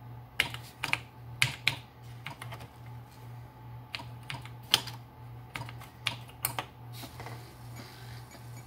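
Computer keyboard keys being typed, a run of separate clicks with short pauses, entering a copy command, over a low steady hum. From about seven seconds in the typing stops and a faint steady hiss follows as the disk drive starts the copy.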